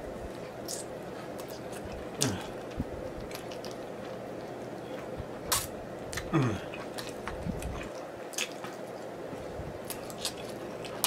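Close-miked wet eating sounds of sticky, sauce-glazed chicken wings being stripped clean to the bone: scattered smacks, sucking and lip clicks, with twice a short falling 'mm'.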